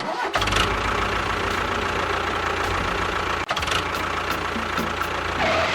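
Engine running steadily with a fast, low, knocking chug. There are short breaks right at the start and about three and a half seconds in.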